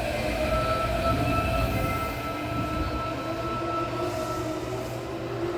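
Osaka Metro 30000A series electric train pulling away from a station, heard from inside the car: the inverter and traction motor whine in several steady tones over the low rumble of the wheels, with the lowest tone slowly rising in the second half as the train gathers speed.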